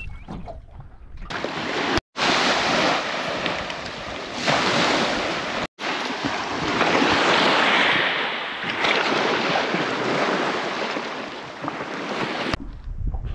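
Steady rushing of wind and surf on a beach. It plays in short clips joined by abrupt cuts, with two brief dropouts.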